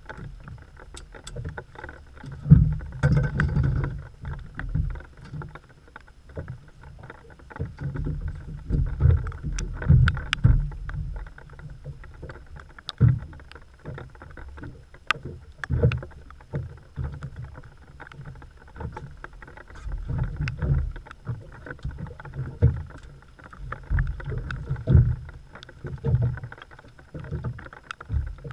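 Irregular low thumps and knocks around a small open boat: choppy water slapping the hull while a landing net and gear are handled on board, with scattered sharp ticks.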